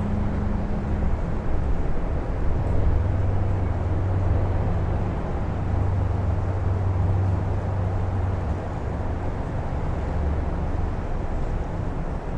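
Strong wind blowing steadily, a dense rushing noise with a low rumble underneath that swells slightly about two to three seconds in.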